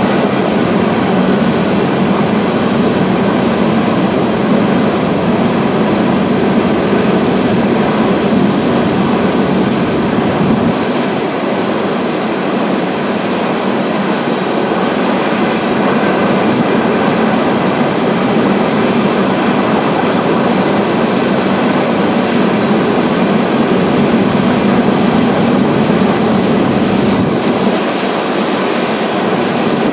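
Long string of coal hopper cars rolling past on a curve: a steady rumble of steel wheels on the rails, with a faint, brief high wheel squeal near the middle.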